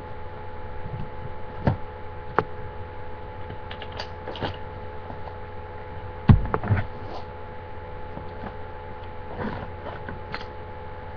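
Handling noise as items are moved and reached for: a few scattered clicks and knocks, with a heavier thump about six seconds in, over a steady electrical hum.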